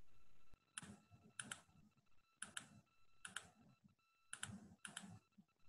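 Faint clicking of a computer being operated, the clicks coming in close pairs about once a second, over a faint steady tone. A low hiss cuts off about half a second in.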